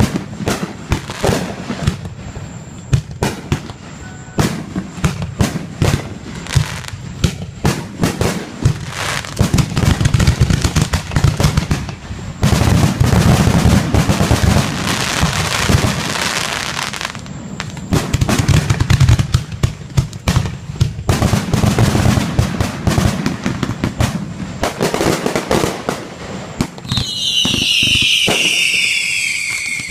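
Fireworks display: a rapid run of bangs and pops, with a stretch of dense, continuous crackling in the middle and a high whistle falling in pitch near the end.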